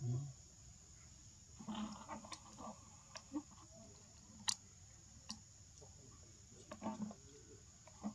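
Macaques making a few soft, short grunts, with scattered small clicks and a sharp click about four and a half seconds in, over a steady high-pitched insect drone.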